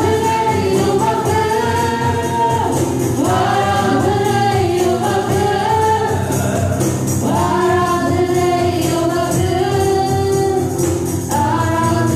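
Live Tamil worship song: a woman sings the lead in phrases of a few seconds, backed by a band over a steady beat.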